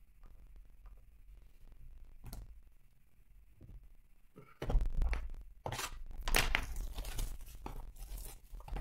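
Shrink-wrap plastic being torn and crinkled off a sealed Topps Tribute baseball card hobby box. The loud crackling starts about halfway through, after a few light clicks.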